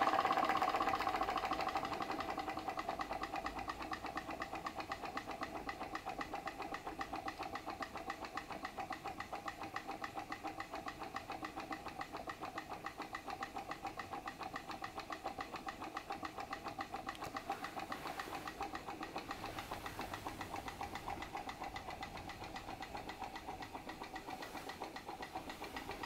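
Small PM Research glass-cylinder Stirling engine running under load, driving a model Baker fan through a string belt: a rapid, even mechanical clatter from its piston and crank. It is louder for the first couple of seconds, then settles into a steady rhythm as the engine slows under the fan's load.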